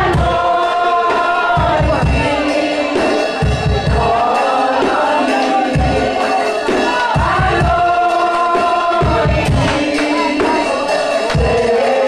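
Gospel worship music: many voices singing loudly together over instrumental backing, with low bass beats about every second.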